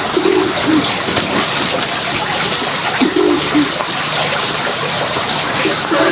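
Pigeon cooing in short low phrases, three times about three seconds apart, over a steady rushing hiss.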